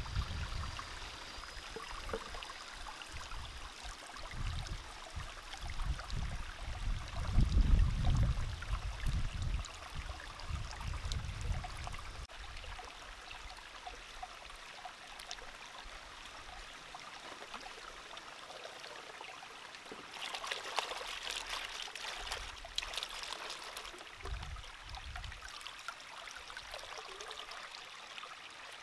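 Shallow stream running steadily over rock, with hands splashing and swishing produce in a wooden bowl standing in the water; the splashing grows louder for a few seconds about two-thirds of the way in, and dull low bumps come and go.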